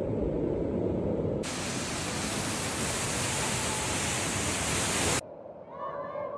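Rushing water of a waterfall, a steady noisy roar: muffled at first, then a bright full hiss from about a second and a half in, cutting off abruptly about five seconds in.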